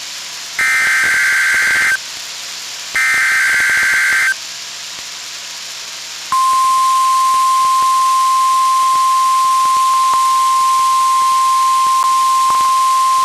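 Two NOAA Weather Radio SAME header data bursts, each a rapidly warbling burst about a second and a half long with a second's pause between them. About six seconds in, the steady 1050 Hz warning alarm tone starts and holds. These are the weather radio's required weekly test of its alert tones.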